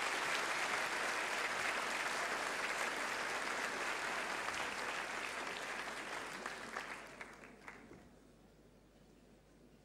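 Audience applauding steadily, then thinning to a few last claps and dying away about eight seconds in.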